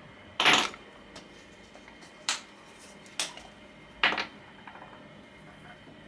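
Handling noises from a Glock pistol's slide being taken apart: four separate clicks and knocks of hard parts, the first and last a little longer than the two between.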